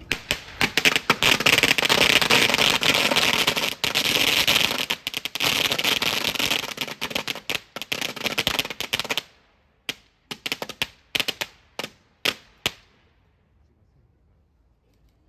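A string of firecrackers going off: a dense, rapid crackle of bangs for about nine seconds, then a dozen or so scattered single bangs that die away.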